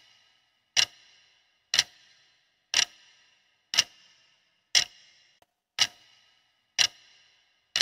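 Countdown-timer clock ticking sound effect, one sharp tick each second with a short bright ring after each, counting down the seconds to answer a quiz question.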